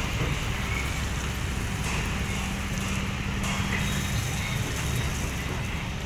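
Diesel engine of a Hyundai 220LC crawler excavator running steadily as it works a gravel pile, mixed with a dump truck's engine, with a steady engine note from about two to four seconds in.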